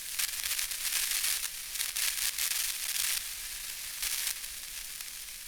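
Irregular rustling and crinkling handling noise, uneven and scratchy, mostly in the upper range.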